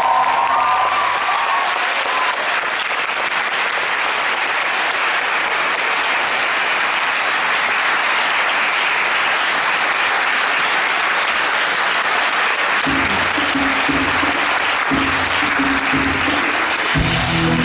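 Theatre audience applauding steadily through a musical's curtain call. About three-quarters of the way through, the curtain-call music comes back in under the applause with low bass notes.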